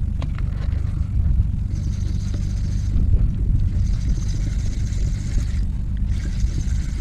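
A spinning fishing reel being cranked, its gears giving a fine, fast high whir in three spells of a second or two each, over a steady low rumble.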